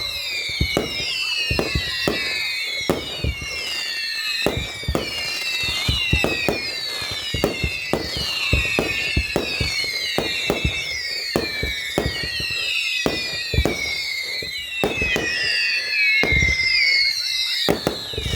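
Fireworks going off in a rapid barrage: many sharp bangs overlapped by a continuous run of whistles, each dropping in pitch.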